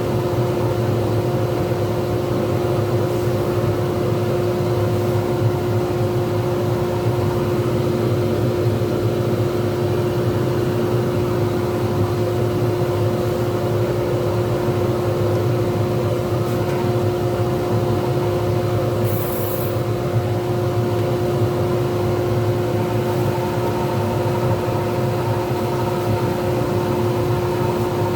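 Pen-turning lathe running steadily with a constant motor hum. A brief high hiss comes about two-thirds of the way through.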